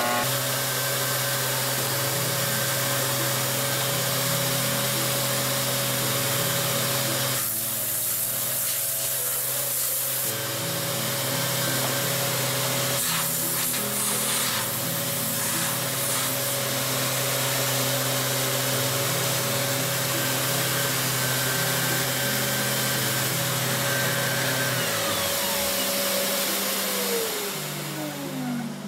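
Electric disc sander running steadily, sanding end-grain wood samples on a 500-grit foam abrasive disc, with a constant motor whine. Near the end the whine slides down in pitch as the sander is switched off and spins down.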